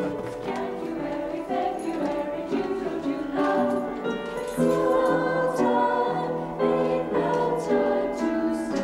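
A choir of voices singing in harmony, slow held chords changing every second or so.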